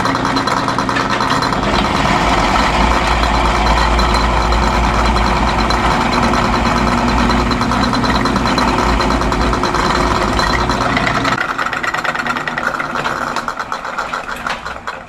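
Power drill running under load, boring holes into a steering wheel with a small bit before larger ones. The deepest part of the sound drops out about eleven seconds in, and the noise fades away over the last few seconds.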